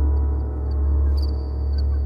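Deep, sustained bass drone from an audiophile test track, swelling and easing slowly, with a faint high ringing tone and a few light ticks above it.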